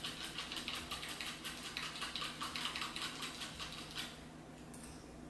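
Close-miked chewing: a rapid run of wet, clicking mouth smacks that dies down about four seconds in.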